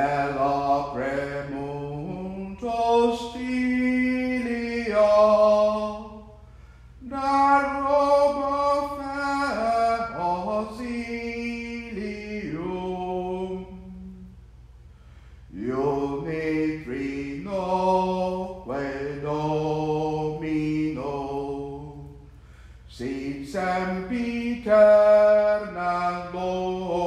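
A single voice singing a slow, chant-like hymn in long held notes. It comes in four phrases of about six seconds, with short breaths between them.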